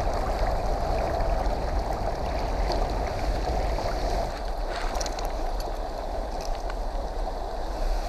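Steady rushing of a shallow, rocky river current, with a low rumble underneath.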